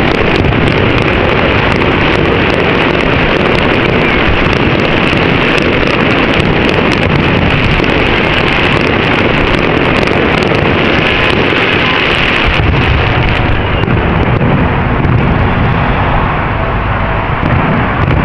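A fireworks display going off in a dense, continuous barrage of bangs and crackle, loud enough to swamp the microphone, easing slightly near the end.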